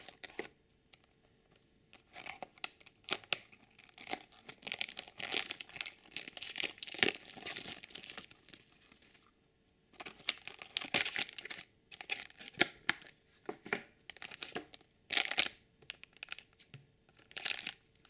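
Plastic packaging of a Shopkins blind basket being torn and crinkled open by hand, in irregular bursts with a short pause about halfway through.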